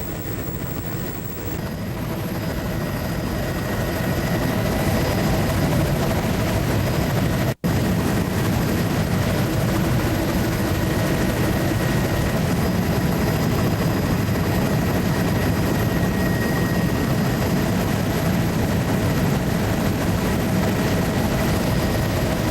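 Steady engine and airframe noise of a low-flying survey aircraft in cruise, heard from on board. It grows louder over the first few seconds and cuts out for a split second about seven and a half seconds in.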